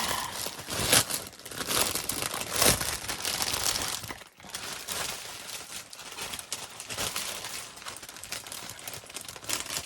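Packaging crinkling and rustling as it is handled, with sharp crackles, heaviest in the first few seconds and lighter after.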